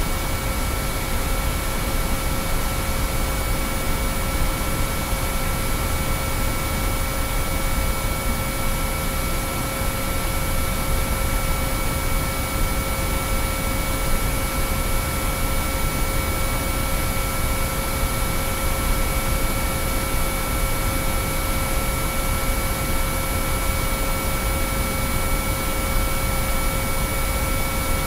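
Binaural-beat track: several steady pure sine tones held at fixed pitches over a constant bed of hiss with a deeper rumble underneath, unchanging throughout.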